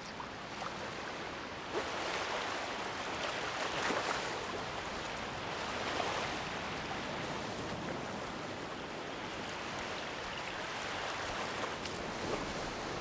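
Gentle surf washing up over a sandy beach and drawing back, a steady rush of water that swells a few times.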